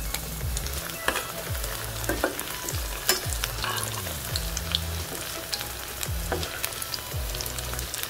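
Battered baby corn deep-frying in hot oil, the oil sizzling and crackling steadily, with a few sharp clinks as a slotted steel spoon stirs through the pan.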